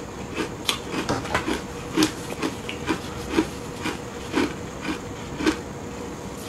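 Close-miked chewing of a mouthful of shaved ice, with irregular crisp crunches about two to three a second.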